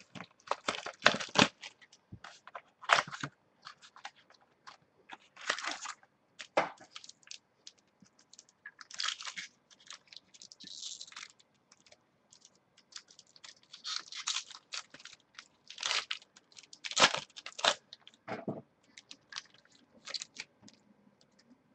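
Foil trading-card pack wrapper being torn open and crinkled by hand, in irregular crackly bursts, along with cards being handled.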